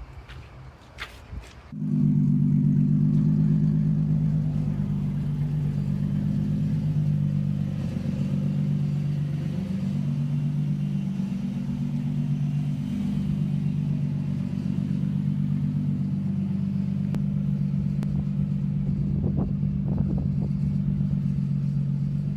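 Nissan 350Z's V6 engine idling steadily with a low, even note. It comes in suddenly about two seconds in, after a few faint clicks.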